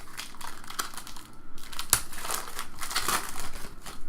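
Crinkling and crumpling of a foil trading-card pack wrapper being handled and torn open, with one sharp click about two seconds in.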